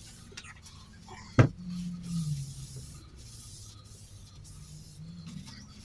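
Workshop handling noise as a motorcycle wheel is taken off: a single sharp knock about a second and a half in, followed by a short low hum that falls in pitch, with light rubbing around it.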